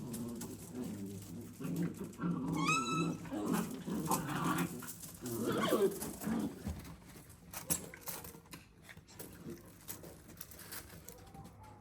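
Puppies play-fighting, with low growls through the first half and a quick run of high yelps about three seconds in; the sounds grow sparser and quieter toward the end.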